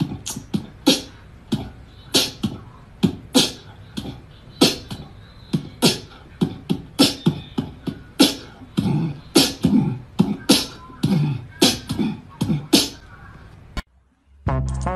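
An irregular run of sharp, crisp popping or clicking bursts, about two a second, that cuts off about a second before the end; after a brief gap, music with a steady beat starts.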